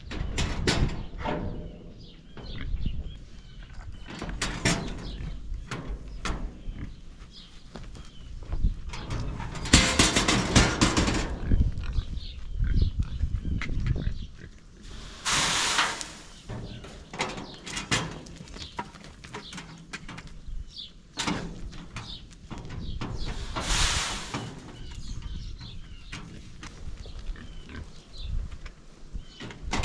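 Pigs grunting and rooting, with three longer harsh squeals about ten, fifteen and twenty-four seconds in.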